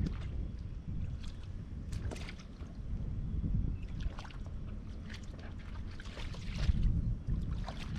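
Wind rumbling on the microphone over shallow river water lapping and splashing around wading legs on a pebbly bed, with scattered small ticks and splashes.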